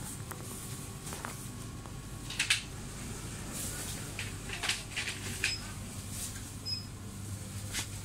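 Shop room tone: a steady low hum with scattered light clicks and knocks, the loudest about two and a half seconds in, and two short high beeps around the middle.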